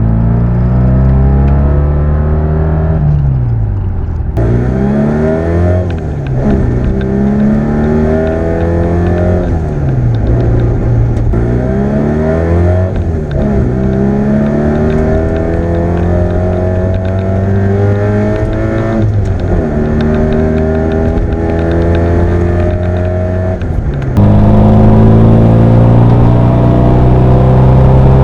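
Fiat 500 Abarth replica's air-cooled two-cylinder engine pulling hard, its note climbing over a few seconds and then dropping sharply, again and again, like shifts up through the gears. About 24 seconds in it becomes suddenly louder and holds a steady, higher note.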